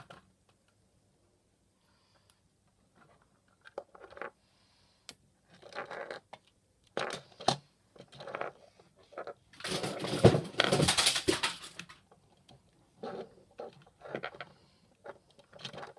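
LEGO toy vehicles and bricks being handled and pushed about on a tabletop: scattered plastic clicks and rattles, with a louder stretch of rustling and clatter close to the microphone lasting about two seconds, around two-thirds of the way through.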